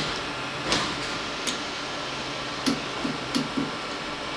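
Sharp metallic clicks of a wrench tightening a vise screw: two spread-out clicks, then four in quick succession about three seconds in, over a steady machine-shop hum.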